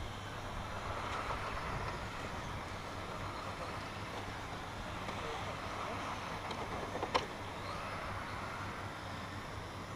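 Electric radio-controlled race trucks running around an asphalt track, their motors whining faintly, rising and falling as they drive. A single sharp click comes about seven seconds in.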